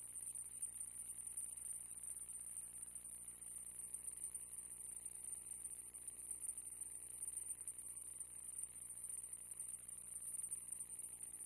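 No real sound: a steady high-pitched hiss with a faint low hum underneath, the noise of an empty soundtrack.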